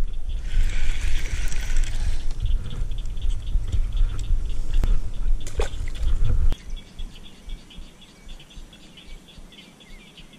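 A bass released back into the pond with a splash of water, over a low rumble of handling noise on the microphone that stops about two-thirds of the way through. A faint rapid chirping runs underneath.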